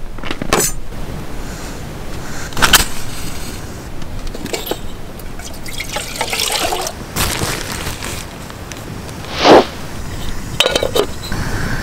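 Water poured from a plastic bottle into a camping kettle, among short clatters of camp-stove gear being handled, with one brief loud clunk about nine and a half seconds in.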